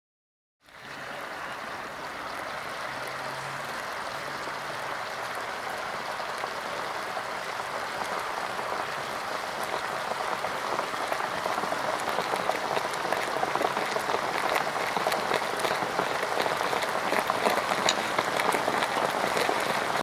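Exothermic heating agent in a self-heating pouch fizzing as it reacts with water: a steady bubbling hiss that starts suddenly about a second in and grows slowly louder, with more and more scattered crackling pops toward the end.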